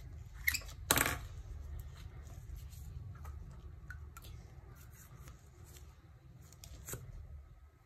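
Small clicks and scrapes of a metal lipstick tube and its jeweled cap being handled and the cap fitted on. There is a sharp click about a second in and another near the end, over a low steady hum.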